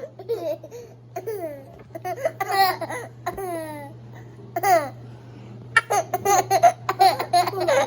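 Twin babies laughing: high voices swooping down in pitch, breaking into quick runs of laughter from about six seconds in.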